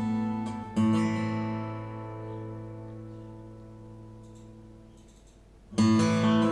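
Recorded song playing over Fyne Audio F1-8 hi-fi loudspeakers: acoustic guitar chords, one struck about a second in and left to ring and fade away, then a fresh chord near the end.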